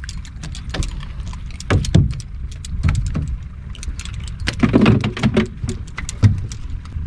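Wind rumbling on the microphone, with irregular splashes and sharp clicks as a hooked redfish thrashes at the surface beside the boat and is lifted out on the line.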